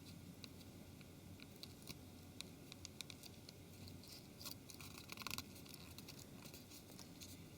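Faint handling sounds as a flex cable is fitted onto a phone's chassis: scattered small clicks and light scratching, with a short scratchy rustle about five seconds in.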